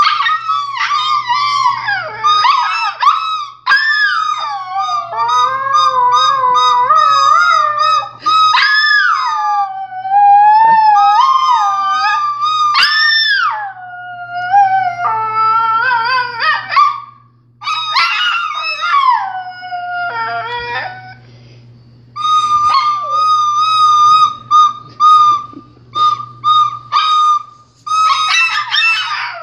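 A small dog howling along to a recorder: long howls that slide up and down in pitch over a held high recorder note. In the last third the recorder mostly plays on alone in short repeated notes, and the dog joins in again near the end.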